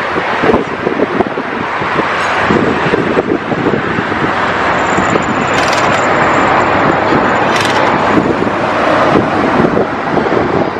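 Heavy track-laying machinery running with a steady loud mechanical noise and constant rattling, with two sharp metallic clanks about halfway through.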